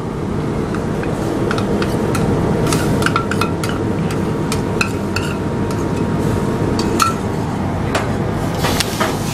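Metal spoon scraping and tapping against a steel bowl as thick ground masala paste is scraped out into a pot, in irregular short clinks. A steady low drone of kitchen noise runs underneath.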